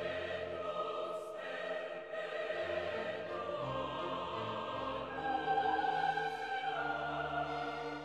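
Background classical music: operatic singing over an orchestra, with long held notes that swell loudest a little past the middle.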